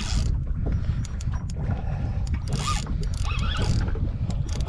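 Light fishing reel's drag giving line in short zipping bursts, with clicks, as a hooked snapper runs against it, over a steady low rumble.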